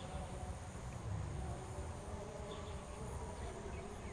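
Wind rumbling on the microphone, with a faint, steady insect-like buzz over it.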